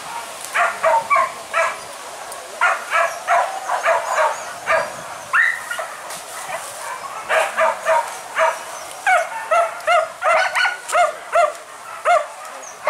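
Hunting dogs yelping and barking in quick runs of short, high cries, several a second, with a brief lull about halfway through.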